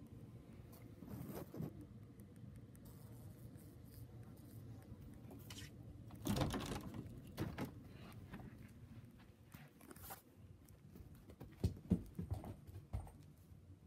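Soft scuffles, pats and thumps of a house cat scrambling, pouncing and rolling on carpet, mixed with rustle from the phone being moved about. The loudest bumps come at about six seconds in and in a cluster around twelve seconds.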